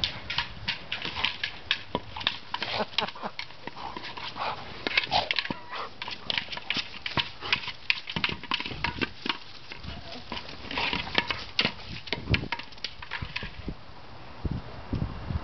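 A dog playing with a toy ball, nosing and pushing it around over dirt, stones and brush: a steady run of irregular clicks, scrapes and knocks, with a few low thumps and some rustling.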